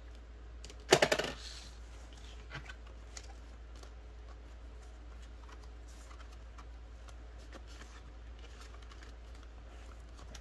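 Handling of a ring-binder cash budget planner: a laminated tracker card and clear plastic pockets being moved and flipped, giving faint clicks and rustles. One loud, sharp click with a brief buzzy ring comes about a second in.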